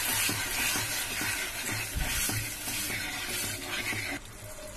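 Sugar and a little water in a non-stick kadai sizzling as the sugar melts into a bubbling syrup, with a wooden spatula stirring and scraping across the pan. The sizzle drops off suddenly near the end.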